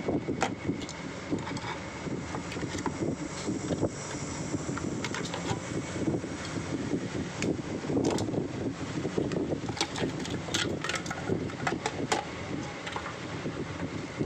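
Scattered clicks and knocks of hands working on a fridge's control board and its plug-in connectors, over a steady background rumble.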